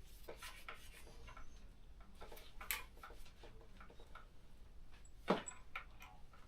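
Faint, scattered small clicks and light taps of bicycle parts being handled, with two sharper clicks about a third of the way in and near the end.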